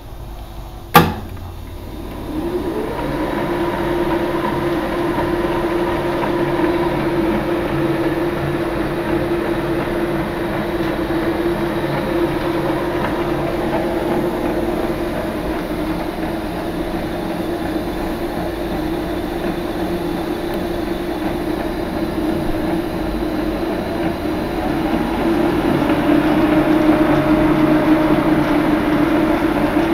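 A sharp click as the start button of a Boxford lathe is pressed, then the lathe's inverter-driven motor and spindle spin up over about a second and run steadily with an even hum. Near the end the pitch shifts and the sound gets louder as the 582 inverter's speed dial is turned.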